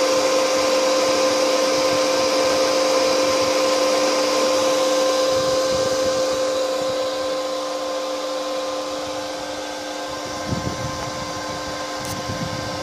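ABB ACS355 solar pump inverter running, its cooling fan blowing with a steady whine of several held tones. It gets somewhat quieter over the second half.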